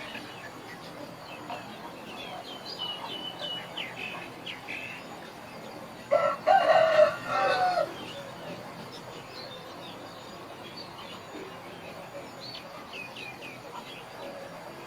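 A rooster crowing once, about six seconds in, for roughly two seconds. Short high bird chirps come and go around it.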